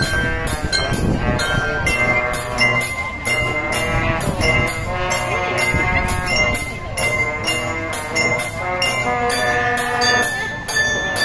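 Marching band playing: the brass section, sousaphones included, holds long chords over front-ensemble mallet keyboards and a steady percussion beat.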